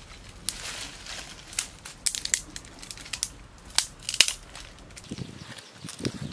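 Dry sticks and twigs being snapped and pulled out of brushy undergrowth by hand: a series of sharp, irregular cracks, with the loudest near the middle.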